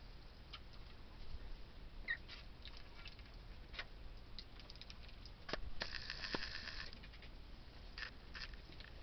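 Pekin ducklings dabbling at plastic waterers and in straw bedding: faint scattered clicks and water patter from their bills, with a brief louder burst about six seconds in.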